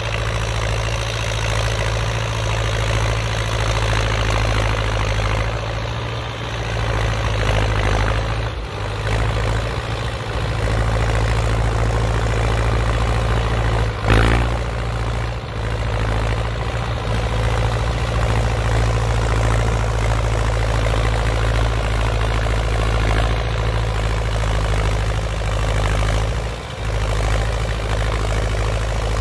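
Old Belarus MTZ tractor's diesel engine running steadily under load as it pulls a rotary tiller through the soil, with a strong low hum.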